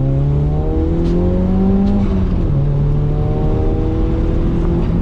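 Ford Laser TX3's turbocharged four-cylinder engine accelerating through the gears: the revs climb, drop at an upshift a little over two seconds in, then climb again and drop at another shift near the end.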